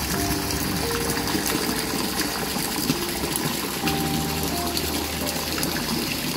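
Steady rushing water with a slow melody of single short notes over it.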